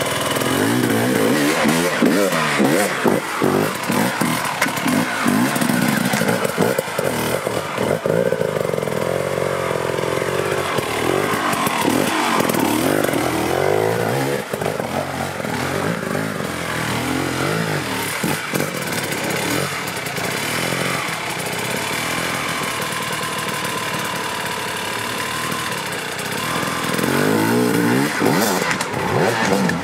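Enduro dirt bike engines revving hard on a steep rocky climb, the pitch rising and falling again and again as the throttle is blipped.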